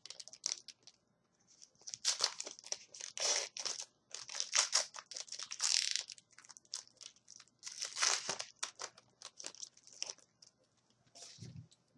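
Foil hockey card pack wrapper being crinkled and torn open, in a run of short, irregular rustles and crackles, with a soft knock near the end.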